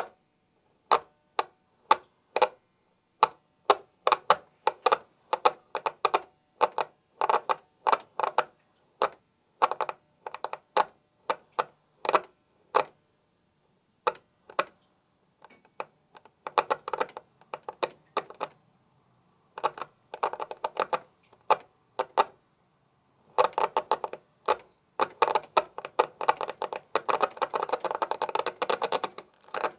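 Hand-cranked mutoscope flipping its reel of Polaroid photo cards: sharp clicks as each card snaps past, in runs with short pauses, coming fast and close together near the end.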